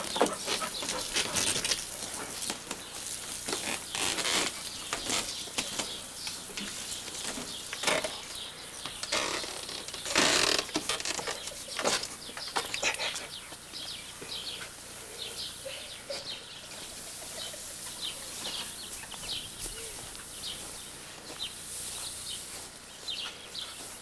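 Irregular splashing, rustling and clicks of a dog playing in the spray of a garden hose.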